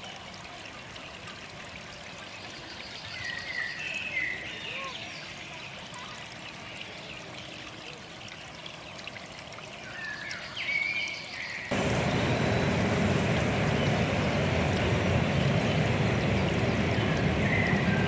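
Quiet outdoor ambience with a few short bird chirps, then about twelve seconds in an abrupt jump to a loud steady rushing noise that sounds like running water.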